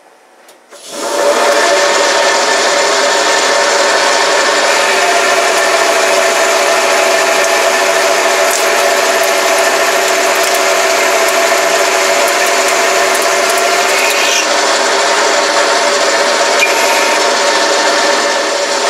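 Boxford AUD metal lathe starting up about a second in and then running steadily, with a boring bar cutting the centre hole of a chuck backplate blank. A steady whine sits over the loud noise of the machining.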